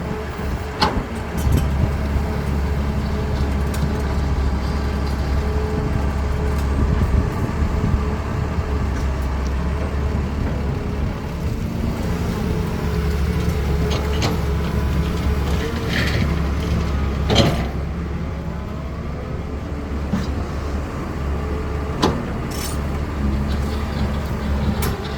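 Caterpillar 320D excavator's diesel engine running steadily, with a few sharp knocks and clanks scattered through.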